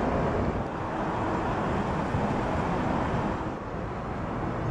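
Steady low rumble of wind buffeting the microphone outdoors, with no clear engine note standing out.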